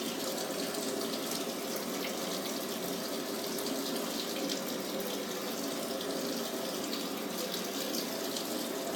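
Samsung Diamond Drum washing machine taking in water at the start of its wash cycle: a steady rush of water running into the drum, with a faint hum underneath.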